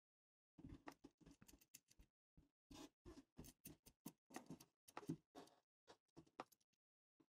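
Faint, irregular clicks and taps of small parts being handled as a fire button and its nut are fitted into a box mod enclosure.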